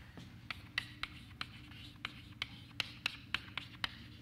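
Chalk on a blackboard while symbols are written: a quick, uneven run of short, sharp taps and scrapes, about three a second, over a steady low room hum.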